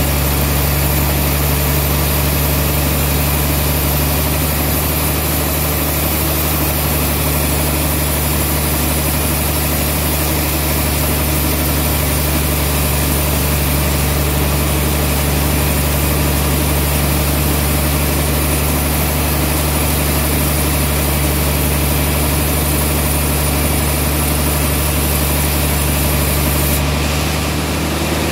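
Large band sawmill running steadily as its blade rips lengthwise through a big trembesi (rain tree) log: a constant low machine hum under an even sawing noise.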